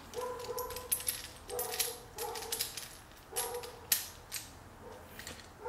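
Small metal clamp parts and magnets handled in the hands, giving a string of light clicks and knocks. Several short, faint, steady whines come and go between them.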